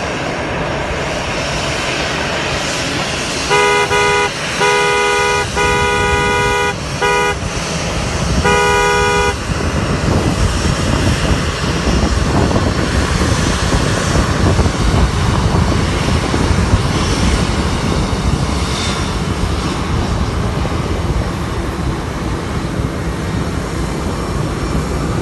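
A vehicle horn honking in five short blasts a few seconds in, over the steady rumble of airport apron traffic.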